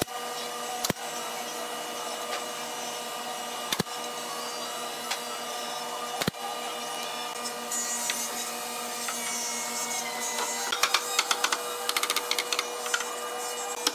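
Pneumatic brad nailer firing single nails into hardwood cabinet panels: about four sharp shots a few seconds apart over a steady workshop machine hum. Near the end, a quick run of rapid knocks and taps.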